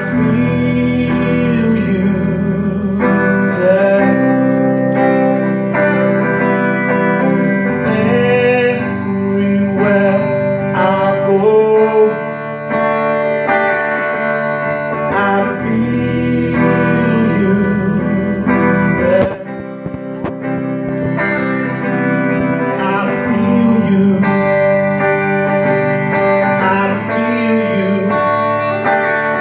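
Live instrumental passage on two guitars, a hollow-body electric and an acoustic, with sustained notes that bend up and down in pitch.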